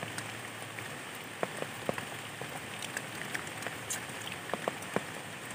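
Rain falling on shallow floodwater and wet ground: a steady patter with scattered louder drops.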